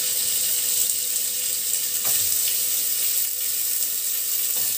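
Chunks of raw beef frying in hot butter and oil in a pot, a steady sizzle, with a soft knock as another piece goes in about two seconds in and again near the end.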